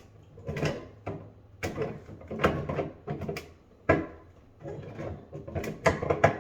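Hand tool working a washing machine hose coupling tight: a series of metal clunks and scrapes, roughly one a second, as the threaded fitting is cranked down as far as it will go.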